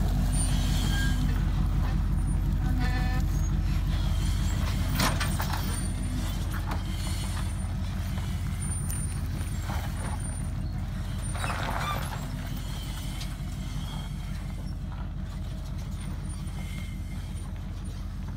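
A four-wheel drive's engine runs at low revs as it tows a loaded off-road camper trailer down a rocky track, with occasional knocks and crunches from the wheels and trailer over the rock. The engine drone fades slowly as the rig moves away.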